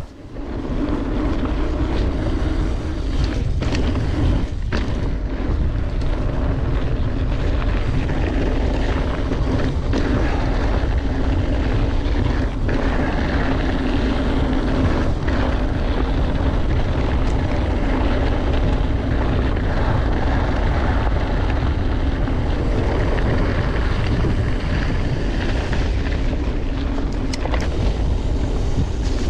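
Wind rushing over an action camera's microphone, with tyre and trail noise from a mountain bike being ridden along at speed and a few sharp knocks from bumps. It starts abruptly in the first second and then holds steady.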